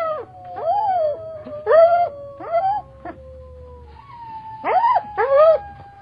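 Coyotes calling to one another: long howls that slowly fall in pitch, overlapping at first, with short yips over them. After a lull about three seconds in, a new howl starts about four seconds in, with two more yips near the end.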